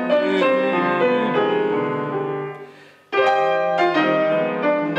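Classical piano music played on a grand piano. The notes die away to a brief hush just before three seconds in, then the playing resumes with a strong new chord.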